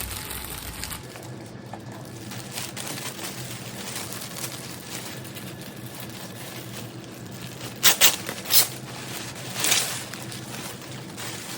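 Rustling and handling noise from a handbag and its packaging being turned over and opened, with a few short, louder rustles about eight and ten seconds in.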